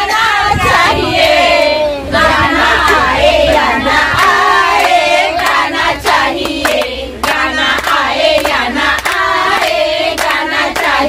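A group of women singing together and clapping their hands along to the song.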